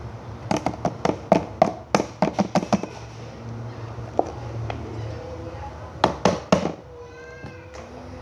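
Slime being squeezed and poked by hand, giving quick runs of sharp pops and clicks in two bursts, the second about six seconds in. A short pitched sound follows near the end.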